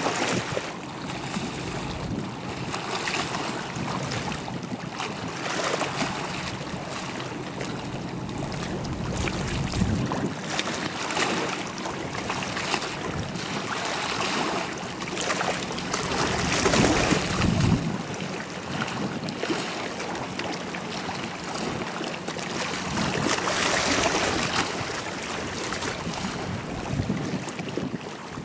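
High-speed passenger ferry passing: its wake and the water rush in a steady noise over a faint low engine hum, with gusts of wind buffeting the microphone.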